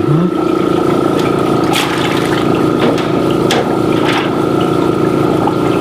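Small air compressor running with a steady hum, bubbling air through the water of an egg-washing sink, with several light knocks scattered through the middle.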